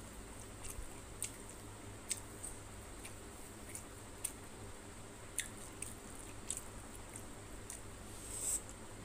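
Wet eating sounds: fingers squishing rice into tilapia fish curry on a plate, and chewing, with irregular sharp wet clicks about every half second to second.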